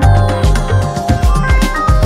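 Background music: an electronic track with a heavy bass beat about twice a second.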